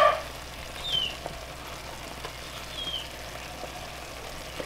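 Tomato and corn cooking in a clay pot, a soft steady sizzle, with a small bird giving two short, faint falling chirps, about a second in and again about three seconds in.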